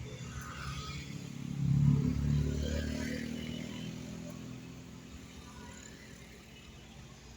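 A motor vehicle driving past, its engine loudest about two seconds in and then fading away.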